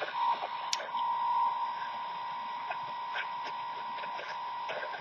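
County Comm GP-5DSP shortwave radio tuned to an empty frequency, its speaker giving steady static with a constant whistle through it and scattered crackles. No station is coming in, only interference, which the owner puts down to a nearby computer.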